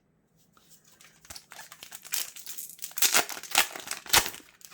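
A Yu-Gi-Oh booster pack's foil wrapper being torn open and crinkled by hand, rustling with several sharp loud crackles in the second half.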